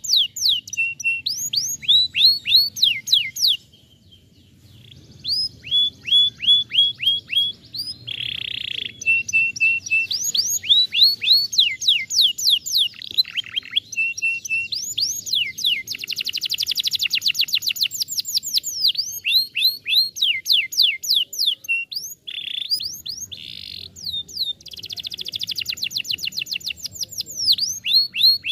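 Domestic canary singing a long, fast song of quickly repeated falling notes and rapid trills, with a brief pause about four seconds in.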